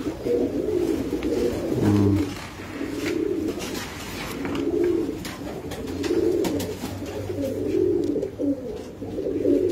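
Domestic pigeons cooing over and over in the loft, several birds overlapping in a low, continuous murmur. Scattered light clicks run through it.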